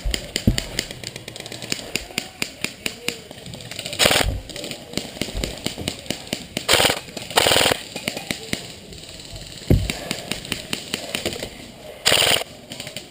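Airsoft gunfire: sharp clicking shots from airsoft guns, scattered singly and in quick strings. Four short, hissy bursts stand out, about four seconds in, twice near seven seconds, and near twelve seconds.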